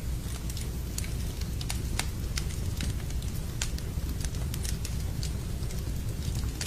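Wood fire burning in a fireplace: a steady low rumble of the flames with frequent sharp, irregular crackles and pops.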